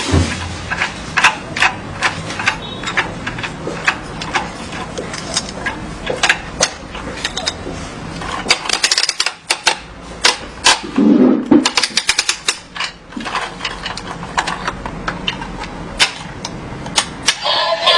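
Plastic parts of a take-apart toy construction vehicle clicking and knocking as it is handled, in irregular runs of sharp clicks that come faster about halfway through.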